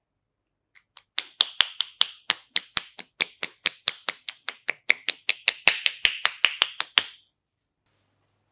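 Masseuse's clasped hands striking down on a towel over a face in a quick percussive face massage, making a run of sharp popping claps about four a second that starts about a second in and lasts about six seconds.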